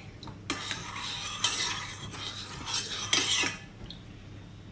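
Metal spoon stirring a thin liquid lemon-gelatin mixture in a small stainless-steel saucepan, scraping against the pan several times, then going quieter near the end.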